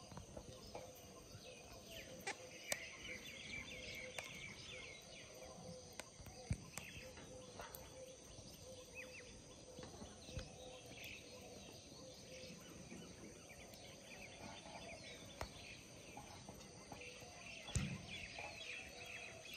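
Faint outdoor ambience with birds chirping in short clusters now and then. There are a few sharp knocks and clicks, the loudest near the end.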